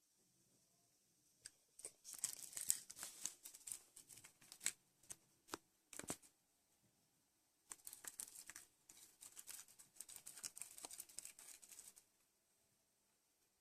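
Slime being squeezed and worked by hand: two stretches of quick, crackly clicks and pops with a sharp snap between them, then quiet again near the end.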